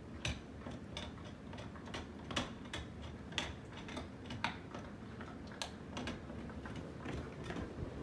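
Ceiling fan running, a low hum under light, somewhat irregular clicks, about two or three a second.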